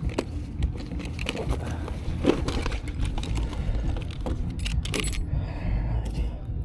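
Irregular light clicks and metallic rattles, thickest about five seconds in, over a steady low rumble.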